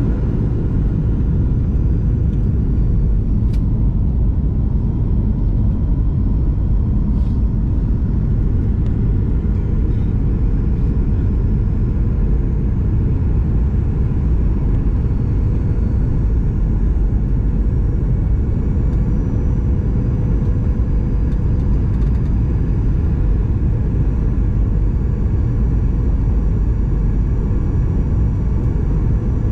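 Steady cabin noise of a Boeing 737-900ER on approach, heard from a window seat: a deep, even rumble of airflow and its CFM56-7B turbofan engines, with a faint steady hum tone above it.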